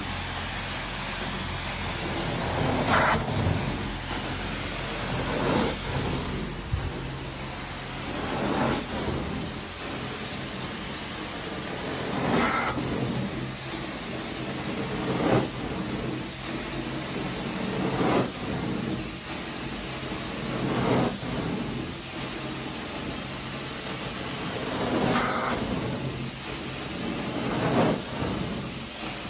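Carpet-cleaning extraction wand spraying and sucking water back out of the carpet over a steady suction hiss from the extractor. The sound swells about every three seconds as each stroke of the wand is pulled.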